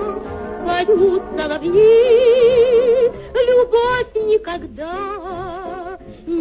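A woman singing a song over musical accompaniment, her voice wavering with strong vibrato. She holds one long note through the middle, then sings shorter phrases.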